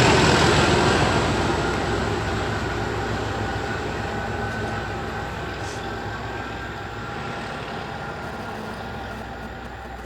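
Two Class 37 diesel locomotives with English Electric V12 engines running under power as the train pulls away, the sound fading steadily as it recedes.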